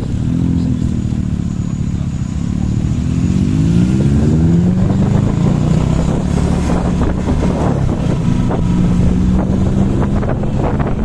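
Motorcycle engine running as it is ridden along a street. It rises in pitch as it accelerates about three seconds in, then holds steady.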